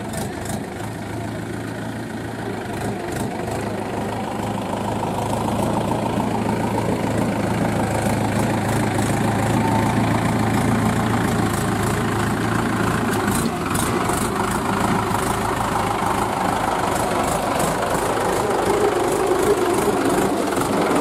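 Mahindra 475 DI tractor's four-cylinder diesel engine running steadily as it pulls a fully loaded trolley through mud. The engine grows louder over the first several seconds as it draws near, then holds level as it passes close by.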